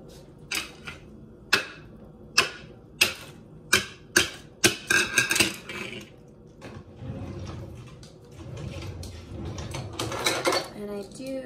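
Small kitchen items being handled on a counter: a series of sharp clicks and taps, about one every second at first and then quicker, followed by softer shuffling. A brief voice sound comes near the end.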